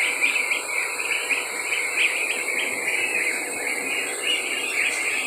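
A large flock of ducklings about two weeks old peeping all together: a dense, continuous chorus of short, high calls.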